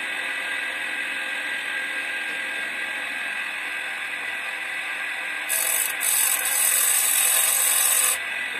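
Chain-sharpening grinder with a washing-machine motor running steadily with a whir. About five and a half seconds in, the diamond disc is brought down onto a chainsaw chain tooth and grinds with a loud, harsh hiss for nearly three seconds, broken briefly after the first half second.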